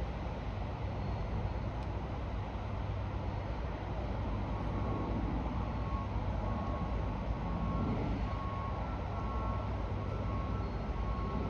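Steady low rumble of heavy construction machinery, with a faint repeating electronic warning beep, like a reversing alarm, starting about four seconds in.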